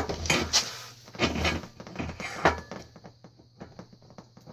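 Knocks and clunks of metal bike parts as a suspension fork is pushed up into a mountain bike's head tube, several sharp ones in the first two and a half seconds, then fainter clicking.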